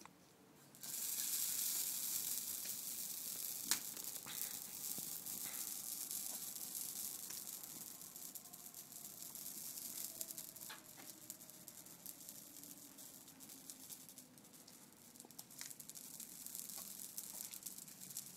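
Dry heather bush burning in a metal fire basket. About a second in it flares up all at once into a loud hiss full of sharp crackles and pops, which slowly dies down.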